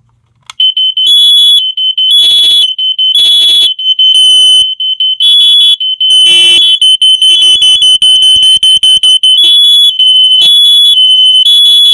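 Three interconnected hardwired smoke alarms (a BRK First Alert 9120B, a Firex I4618A and a Firex GC) sounding together, very loud. Their high-pitched beep patterns overlap out of step at slightly different pitches. They start about half a second in.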